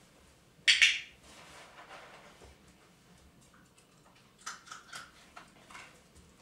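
Two sharp clicks in quick succession about a second in, then a scatter of fainter clicks and ticks later on.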